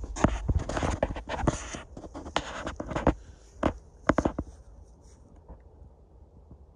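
Handling noise: a quick run of sharp clicks, taps and rustles for about four and a half seconds, then only a few faint ticks.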